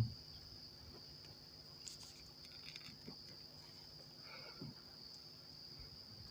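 Crickets trilling steadily in the background, with a few faint light clicks about two, three and four and a half seconds in.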